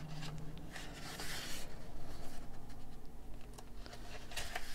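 Paper rustling and rubbing as a hand slides over and handles the pages of a large coloring book, with two soft swishes, about a second in and near the end.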